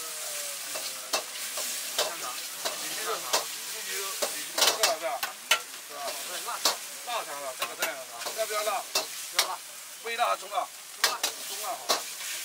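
Metal ladle scraping and clanking against a wok as egg fried rice is stir-fried over a high gas flame, with the rice sizzling steadily underneath. The clanks come quickly and irregularly, some of them ringing briefly.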